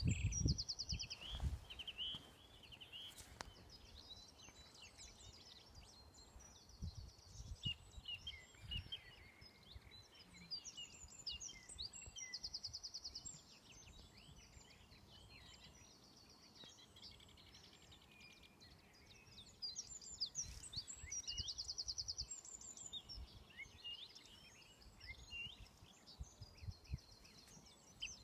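Several songbirds singing at once, one of them repeating a short, fast trill of evenly spaced notes every few seconds, with gusts of wind buffeting the microphone.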